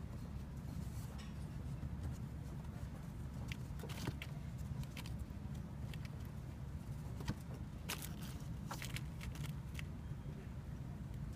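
Steady low background rumble, with scattered light rustles and clicks on top, most of them clustered from about eight to nine and a half seconds in.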